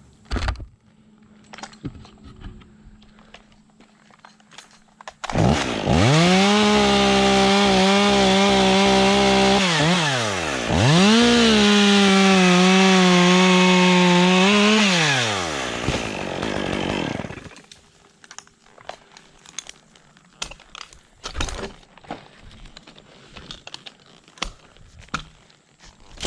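Two-stroke top-handle chainsaw, a Stihl MS 201, revved to full throttle about five seconds in and cutting through ash wood. Its pitch wavers as the chain loads in the cut. Halfway through the throttle drops off briefly, then it revs up again for a second cut before winding down, with faint rustles and knocks before and after.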